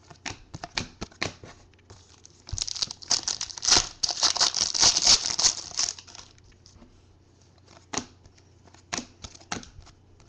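Trading cards flicked through one by one, with a few seconds of crinkling and tearing of a card pack wrapper in the middle.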